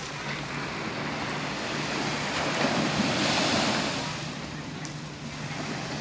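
Sea waves washing onto the shore: a steady surf that swells a couple of seconds in and then ebbs away.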